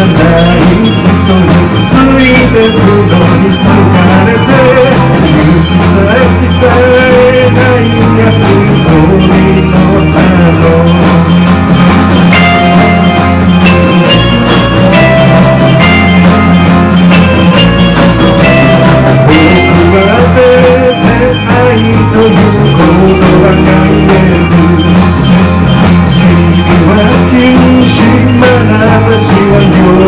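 Rock-band instrumental break in a city-pop song: drum kit, electric bass, strummed acoustic guitars, electric guitar and piano playing together at a steady beat, with a melody line carried over the band.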